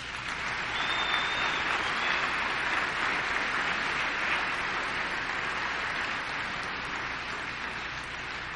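Audience applauding, building quickly at the start and tapering slowly towards the end.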